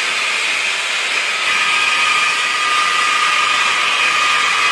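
Large water-cooled circular stone saw cutting volcanic rock into slabs: a steady hiss of blade and water spray, with a high steady whine that grows stronger about a second and a half in.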